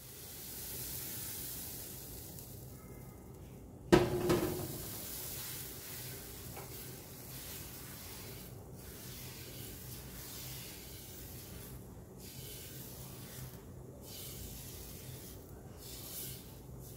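Thin maida batter sizzling with a steady hiss on a hot nonstick kadai as it is spread in circles with a steel ladle, the ladle rubbing over the pan. A single sharp knock about four seconds in is the loudest sound.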